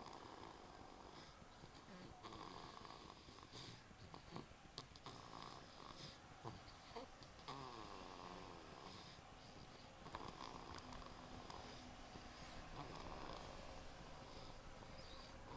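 A baby snoring faintly, a rasping breath repeating every two to three seconds.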